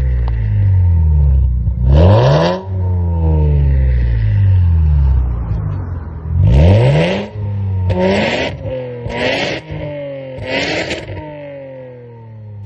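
Lexus IS200's straight-six revved five times through a Kakimoto Hyper Full Mega N1 +Rev muffler and straight centre pipe, each rev rising quickly and falling back to idle.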